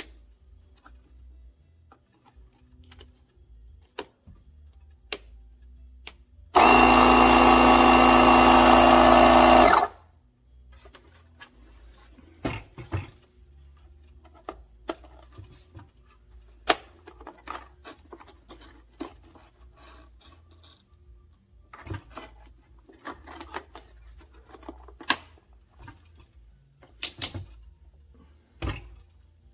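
A loud mechanical whir that starts and stops abruptly and lasts about three seconds, like a small power tool or motor, among scattered clicks and knocks.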